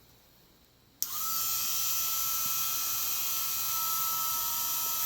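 Small rotary tool fitted with a wire brush wheel, switched on about a second in. It spins up quickly, then holds a steady high whine while it cleans carbon deposits off the foot pedal's electrical contacts.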